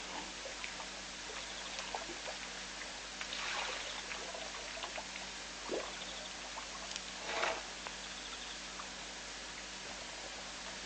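African elephant drinking at a waterhole: two splashy gushes of water from its trunk, about three and a half and seven and a half seconds in, and a softer splash near six seconds. Under it runs a steady hiss with faint repeated chirping.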